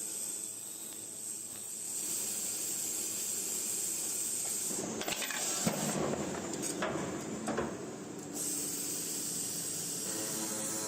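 CNC metal circular sawing machine running with a steady hum and high hiss. From about five to eight seconds in, a rougher, louder stretch with a few sharp knocks.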